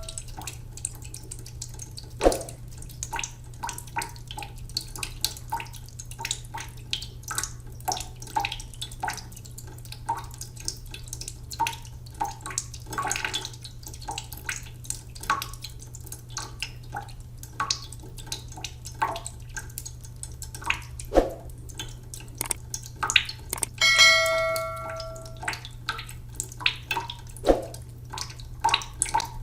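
Water dripping and plopping in irregular drops over a steady low hum. A bell-like chime rings once about 24 seconds in.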